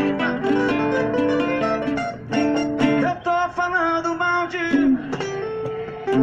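Acoustic guitar playing a melody of plucked notes over chords.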